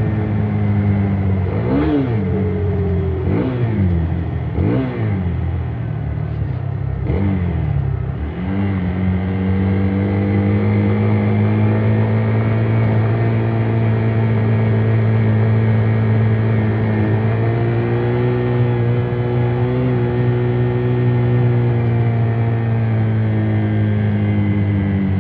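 Hero XPulse 200's 200cc single-cylinder engine through its stock exhaust, revved in four quick throttle blips that rise and fall in pitch, then running steadily at a constant engine speed.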